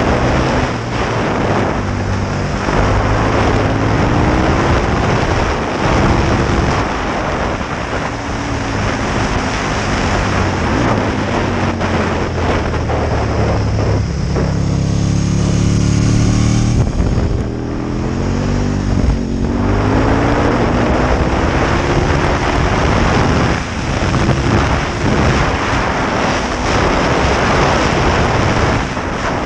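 Aprilia Tuono 1000R's V-twin engine pulling hard and changing gear, its pitch climbing and dropping again and again, under heavy wind rush on the microphone. About halfway through, the engine holds a deeper steady note for a few seconds before the revs climb again.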